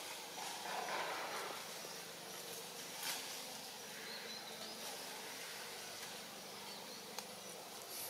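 Forest ambience: a steady insect hiss, with a brief rustle about a second in and two short sharp clicks, about three and seven seconds in.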